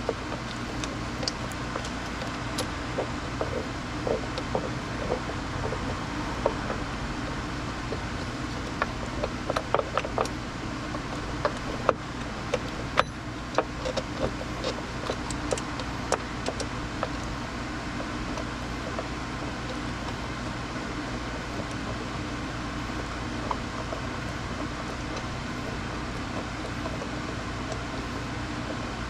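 Steady mechanical hum with scattered light clicks and taps, clustered in the first half, as of hand tools working on engine parts.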